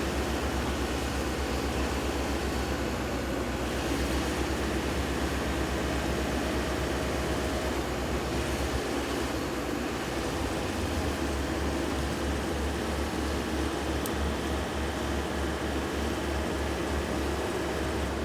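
Heavy equipment diesel engine running steadily, with a fast low pulse; the low note shifts about halfway through.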